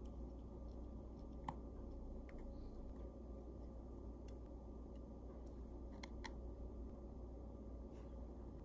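Faint, scattered clicks of a screwdriver and steel tweezers touching a pocket watch movement, and of a small wheel and screw being set down on the bench, over a faint steady hum.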